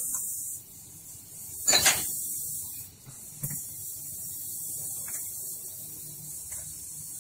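Oil filler cap on a Toyota Grand New Avanza's engine being unscrewed and lifted off: one short loud rasp about two seconds in, then a few light clicks, over a steady hiss.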